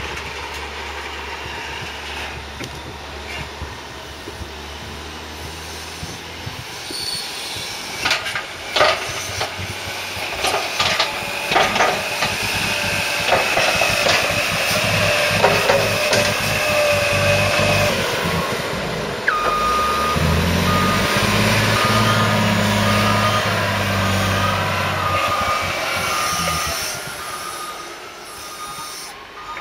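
Heavy silage machinery working: diesel engines running, with clanking and knocks partway through. Past the middle a reversing alarm starts beeping at a steady rhythm, while an engine comes up loudly under load and then eases off near the end.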